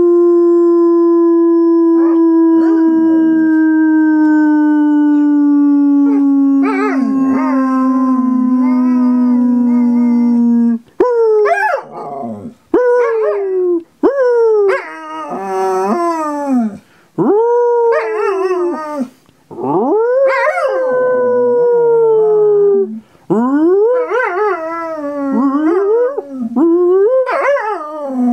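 A person holds a long howl that slowly lowers in pitch for about the first ten seconds, trying to hit the tone that sets a dog off. From about eleven seconds in, a Belgian Sheepdog (Groenendael) answers with a string of howls, each rising and falling in pitch, with short gaps between them and the person's howl mixed in.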